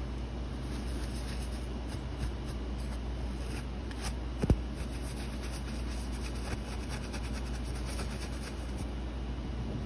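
A soft fan brush lightly sweeping and rubbing over gold leaf on canvas, over a steady low background rumble, with one sharp tap about four and a half seconds in.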